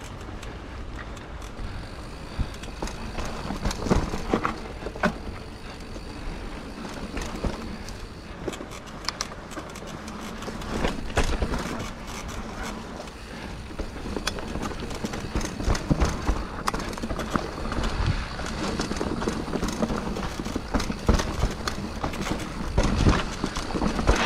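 Full-suspension mountain bike (Scott Genius 950) ridden over a rough dirt trail: steady tyre rumble with frequent knocks, clacks and rattles as it hits bumps and roots, busier and louder in the second half.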